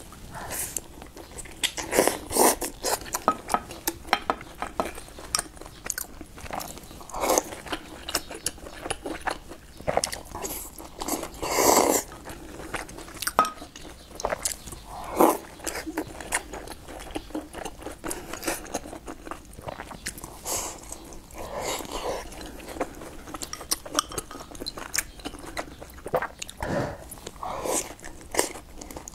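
A person eating soft steamed buns close to the microphone: bites and chewing, heard as many short, irregular mouth sounds.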